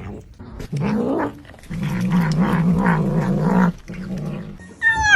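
A domestic cat growling while it eats: a short low growl about a second in, then a longer wavering one, with a higher gliding cry starting near the end.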